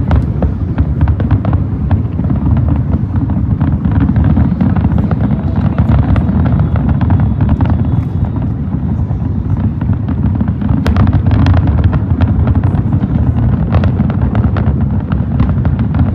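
Aerial fireworks shells bursting in rapid succession: a continuous low rumble of overlapping booms with sharp cracks scattered through it, one standing out about eleven seconds in.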